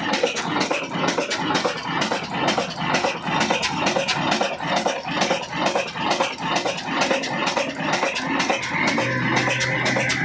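Old Ruston-type single-cylinder horizontal diesel engine running under belt load, a rapid even knocking at several beats a second. Steady music tones come in near the end.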